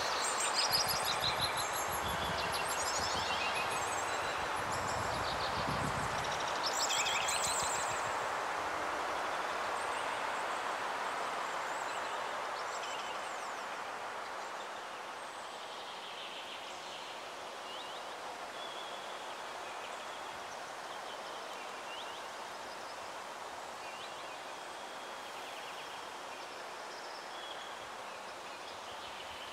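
Forest ambience: a steady rush of wind through the trees with small birds chirping on and off. A low rumble under it fades out in the first several seconds, and the whole sound eases a little about halfway through.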